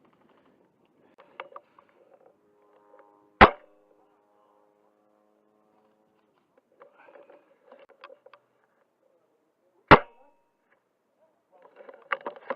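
Two shots from an airsoft sniper rifle, about six and a half seconds apart, each a single sharp crack.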